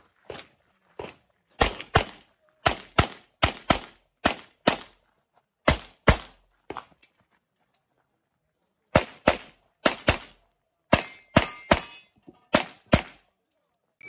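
Handgun fired in quick pairs and strings while shooting an IPSC course of fire: about two dozen sharp shots, with a pause of about two seconds a little past halfway.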